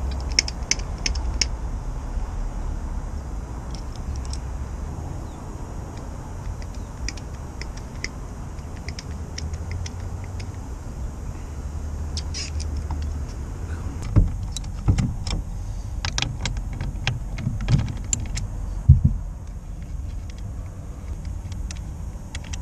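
Small sharp metallic clicks from a hand hydraulic lug crimper being pumped to crimp a 4-gauge lug onto a red charging cable, with a cluster of louder knocks about two-thirds of the way through, over a steady low rumble.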